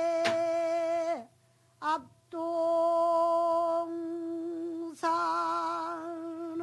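A female pansori singer holds long, steady notes separated by short breaks, each note ending in a downward slide; the last one wavers in a slow vibrato. There is a sharp tap just after the start.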